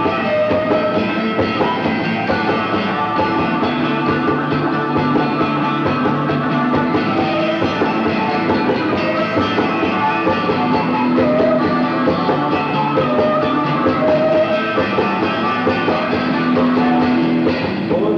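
Live rock band playing an instrumental passage, electric guitar to the fore over bass and drums, with held guitar notes ringing out.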